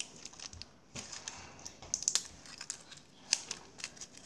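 Paper wrapper of a roll of Love Hearts sweets crinkling as it is handled, with scattered sharp crackles, the loudest about two seconds in and again just past three seconds.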